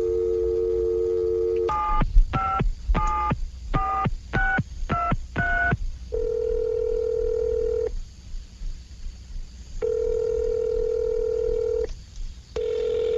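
Telephone line audio: a steady dial tone, then a quick string of touch-tone (DTMF) key beeps as a number is dialed, then the ringing tone sounding three times in roughly two-second bursts as the call rings through.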